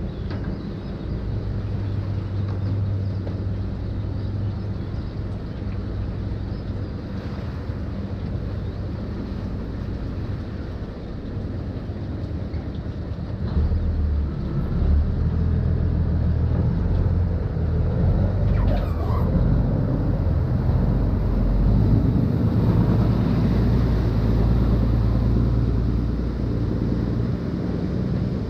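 Khlong Saen Saep canal express boat's engine droning steadily with water and hull noise. The drone grows louder about halfway through, as if the boat is speeding up.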